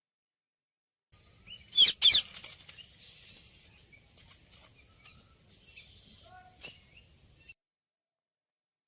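Indian ringneck parrot giving two loud, harsh screeches about two seconds in, then a few softer calls over a steady hiss. The sound cuts in suddenly after a second of silence and cuts off well before the end.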